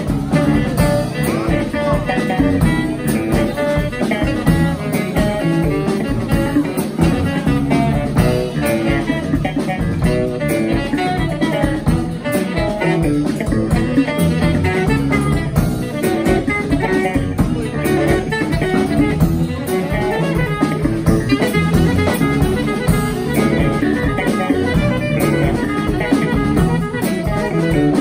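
Live jazz from a trio of electric bass, drum kit and saxophone. The plucked electric bass stands out, with the drums playing behind it.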